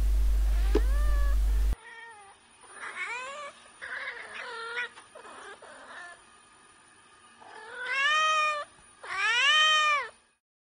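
A cat meowing: several faint meows, then two loud, drawn-out meows near the end, each rising and then falling in pitch. A steady low hum runs under the first meow and cuts off suddenly about two seconds in.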